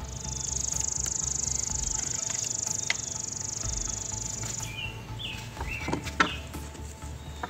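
A high-pitched insect buzz with a rapid pulse, steady for about four and a half seconds and then cutting off suddenly, followed by a few short bird chirps and a couple of sharp clicks.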